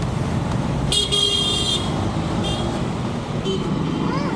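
Street traffic: engines running under several vehicle horn honks. The longest honk comes about a second in and lasts most of a second, and two shorter toots follow.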